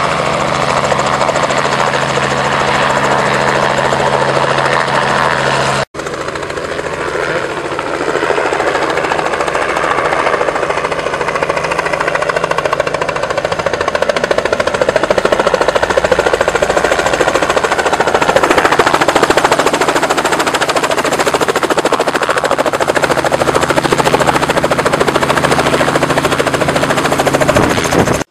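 Light helicopter's rotor and engine running loud and steady. The sound drops out briefly about six seconds in, then returns rougher and noisier.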